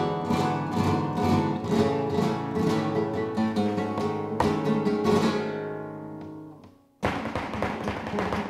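Flamenco acoustic guitar playing quick strummed chords that ring and fade away near the end. About seven seconds in, a louder, denser passage with sharp percussive hits comes in suddenly.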